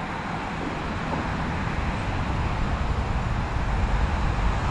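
Wind rumbling and buffeting on the microphone over a steady outdoor roar, growing a little louder toward the end.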